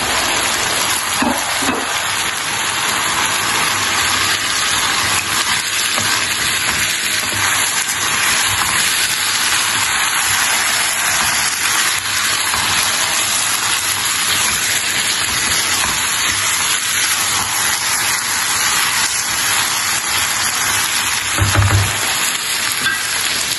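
Chicken curry sizzling in a frying pan as chopped cauliflower is stirred into it, steady throughout, with a short low thump near the end.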